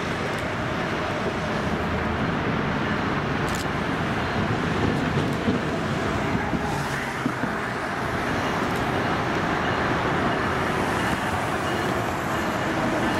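Steady roar of road traffic with no distinct tones, growing slightly louder about two-thirds of the way through as a New Jersey Transit ALP-45DP locomotive and its bilevel coaches approach in the distance.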